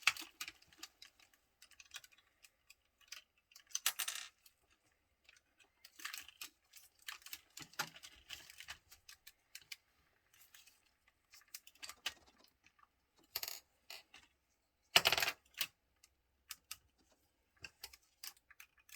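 Small plastic toy parts clicking and clattering irregularly as a transforming toy robot is handled, with louder clatters about four seconds in and about fifteen seconds in.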